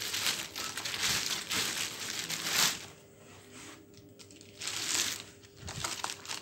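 Thin clear plastic bag crinkling and rustling as a sneaker is pulled out of it and handled, in uneven bursts with a quieter stretch in the middle.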